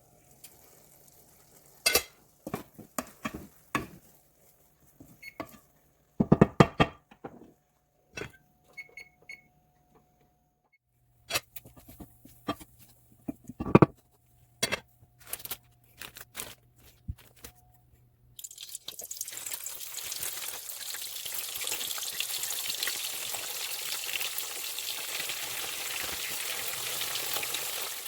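Kitchen work: a series of knocks and clinks of dishes, pots and utensils. About two-thirds of the way in, a steady hiss sets in and continues.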